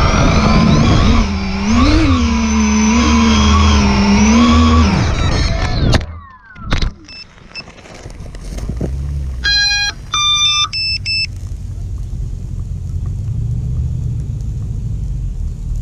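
Electric RC aircraft motors and propellers whining, the pitch rising and falling with the throttle, then spooling down and cutting out about five seconds in. A couple of sharp knocks follow, then a short run of electronic beeps at stepped pitches about ten seconds in, over a low steady rumble.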